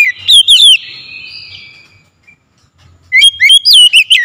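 Oriental magpie-robin giving loud whistled calls of quick swooping notes, in two bursts: one at the start and another about three seconds in, with a short pause between.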